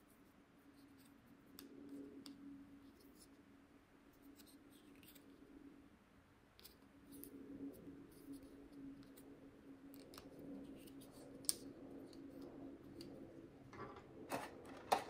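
Faint clicks and rubbing of plastic as a GorillaPod's clip mount is handled and unscrewed, with a few sharper clicks near the end, over a low steady hum.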